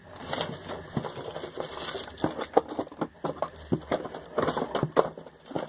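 Hands rummaging through packaged cosmetics, plastic wrappers rustling and crinkling with a steady run of irregular clicks and small knocks.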